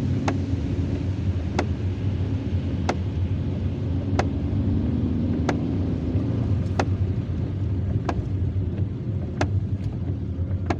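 Inside a car driving in heavy rain: a steady engine and road drone, with the old windscreen wipers giving a short, sharp squeak about every 1.3 seconds, once per stroke. Squeaking like this is what the blades do as they wear.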